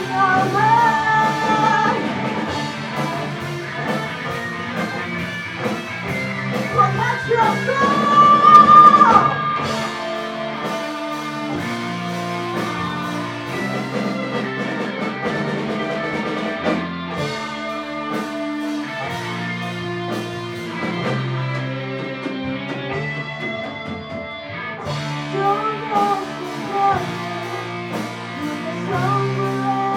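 Live rock band playing with electric guitar, bass and drums. A high held note bends and swells to the loudest point about eight to nine seconds in.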